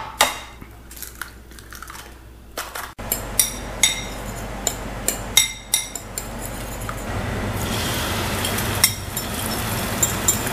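Eggs cracked on the rim of a ceramic bowl, then a fork beating them with quick clinks against the bowl. Near the end the fork scrapes the beaten egg out of the bowl into a pan, over a steady hiss.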